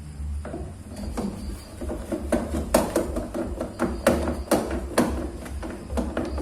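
A run of irregular sharp knocks and taps, a few a second, starting about half a second in: hand tools striking parts of a Polytron washing machine's gearbox assembly as it is worked on.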